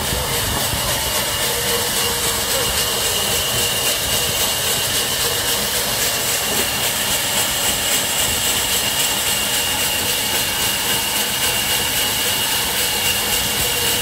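Vertical band saw at a sawmill running steadily while its blade rips lengthwise through a kauri log: a constant hissing rush with a steady high whine over it.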